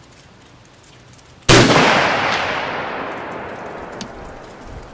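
A single rifle shot from a Lee-Enfield No4 Mk2 firing .303 British, about a second and a half in, with a long echo that dies away over some three seconds.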